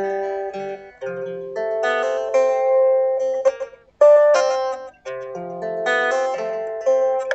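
Solo guitar improvisation: picked notes and chords left ringing, damped short about a second in and again around four and five seconds before fresh chords are struck.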